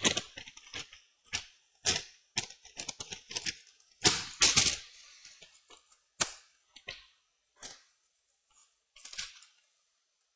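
A run of sharp clicks and light clatter, dense for the first few seconds and loudest around four to five seconds in, then a few sparse single clicks: a laptop RAM stick being pulled out and a replacement pressed into its SO-DIMM slot.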